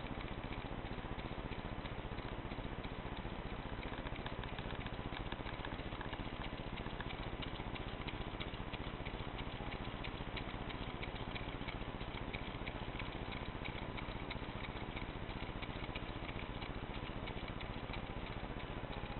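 Several low-temperature Stirling engines running on blocks of ice, their moving parts making a fast, steady mechanical patter.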